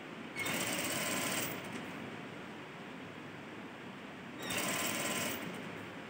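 Sewing machine stitching in two short runs of about a second each, with a steady hum between them, as bias piping is stitched down over a neckline seam.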